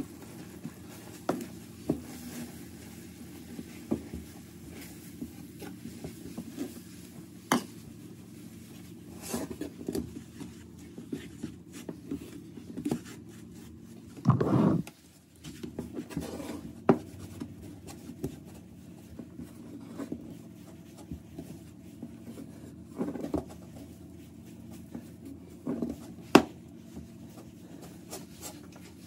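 Wooden spatula stirring and scraping a thick, crumbly mix of milk powder and shredded carrot in a nonstick frying pan, with frequent light taps of the spatula against the pan over a steady low hum. A brief dull bump about halfway through is the loudest sound.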